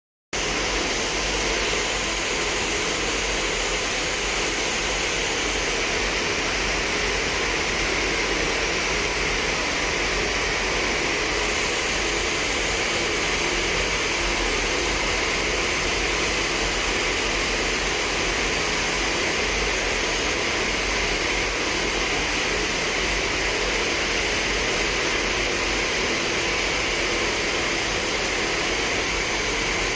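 Nylon zipper sewing machine running continuously at speed, a steady mechanical whirr with hiss and no separate stitch beats.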